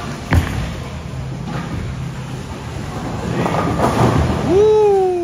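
Bowling alley lanes: a sharp thud, then the low rolling rumble of a bowling ball going down the lane, swelling near the end. Over it comes one long drawn-out vocal call that rises, holds and falls away.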